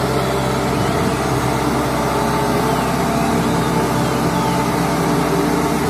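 Road roller's diesel engine running steadily, a low even drone.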